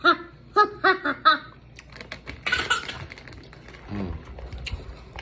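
A woman's brief wordless vocal sounds in the first second and a half, then the small wet clicks and lip-smacks of her eating a sauce-glazed fried rib.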